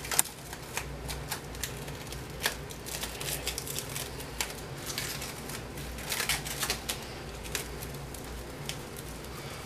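Plastic cling wrap crackling as it is handled and pulled off the roll: a scatter of sharp little crackles and clicks, loudest just after the start.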